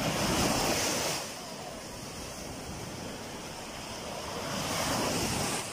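Small sea waves breaking and washing up in the shallows, with two surges of surf about four seconds apart.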